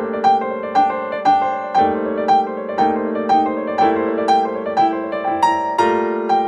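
Background piano music: an even run of notes struck about twice a second over held lower chords.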